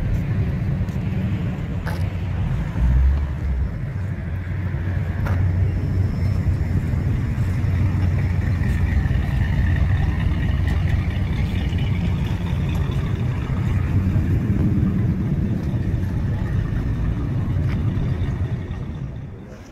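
A car engine idling: a steady low rumble, with a short low thump about three seconds in.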